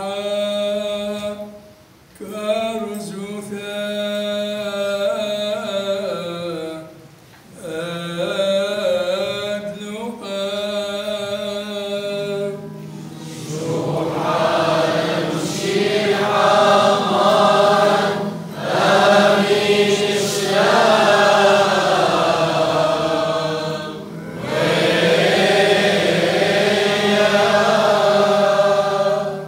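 Chaldean liturgical chant sung by men, in long, slowly moving phrases with short breaks between them. It starts as one male voice; about 13 seconds in, more voices join and it grows fuller and louder.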